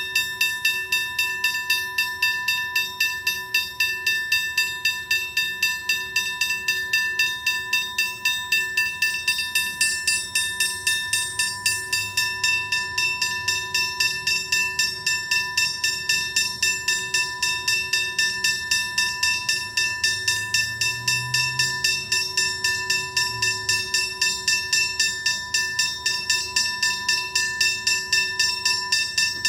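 Railway level crossing warning bell ringing continuously, a rapid metallic ding at about four strikes a second, signalling that the crossing is active.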